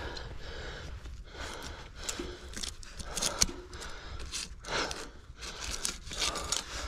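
Mountain e-bike on a rough trail: irregular crunching, scraping and rattling from the tyres and bike over a steady low rumble.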